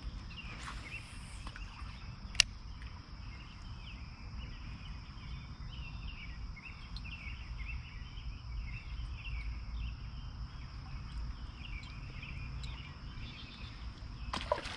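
Summer evening outdoor ambience: a steady high-pitched insect drone with scattered bird chirps over it, a low rumble underneath, and one sharp click about two and a half seconds in.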